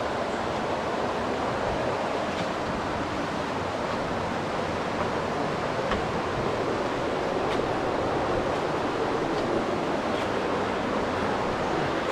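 Steady rush of flowing river water close by, with a few faint clicks over it.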